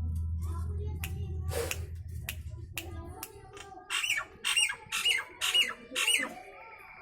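Asian pied starling (jalak suren) giving a quick series of five loud calls, beginning about four seconds in. Scattered clicks come before the calls.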